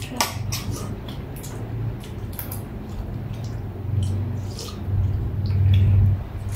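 Close chewing and wet mouth sounds of eating, with a few light clicks of a spoon against a plate.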